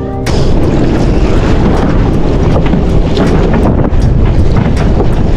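Strong wind buffeting the microphone in a small open boat at sea, a loud steady rush with water noise and a few light knocks against the hull.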